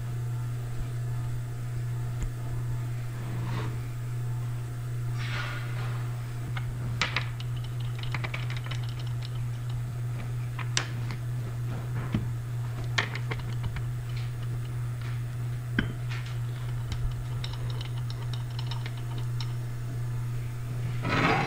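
Scattered light metal clicks and taps as steel bolts are fitted up through a steel workbench into the threaded underside of a Bonfiglioli final drive motor and the housing is shifted to line up, over a steady low hum.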